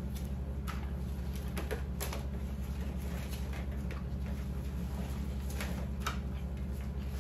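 Gloved hands pulling pieces of smoked pork tasso off butcher's twine, making scattered soft clicks and rustles about one or two a second. A steady low hum runs underneath.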